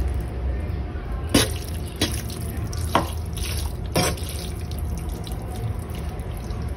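Four sharp, light knocks about a second apart over a low steady hum, the sound of kitchenware handled while noodles are plated from a wok.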